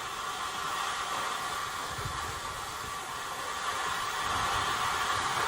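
Gas burner flame hissing steadily as it heats ammonium dichromate to set off its decomposition.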